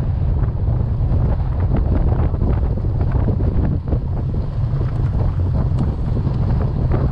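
Strong wind buffeting the microphone: a loud, steady low rumble with gusty noise above it.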